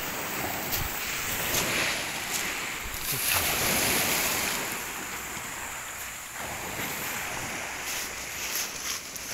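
Waves washing onto a pebble shore, swelling twice, with wind buffeting the microphone.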